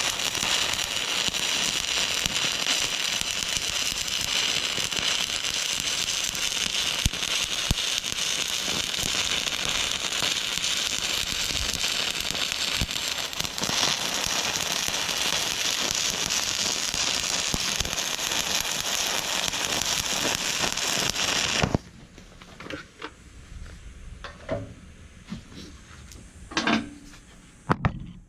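Stick-welding arc running with a steady crackling hiss for about 22 seconds, then cutting off abruptly as the arc is broken; a few light taps and clicks follow.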